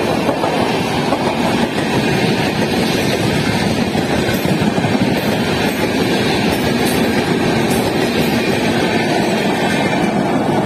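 Howrah Rajdhani Express passenger coaches running through at speed without stopping: a steady, loud rush of wheels on rail and coach noise.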